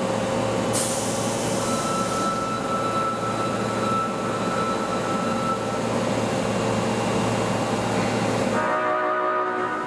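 Osaka Metro 22 series subway train standing at the platform: a burst of hiss about a second in and steady tones, then near the end a short blast of its horn. The horn has an abnormal sound.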